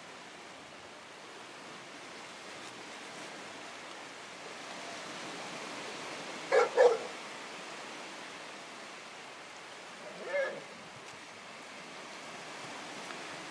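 A dog barking: two quick loud barks about halfway through, then a single fainter one a few seconds later, over a steady background hiss.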